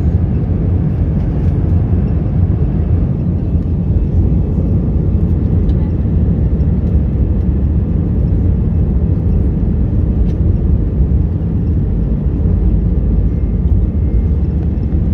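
Airliner cabin noise at the take-off: a steady low rumble of the engines and the wheels rolling on the runway, heard from inside the cabin.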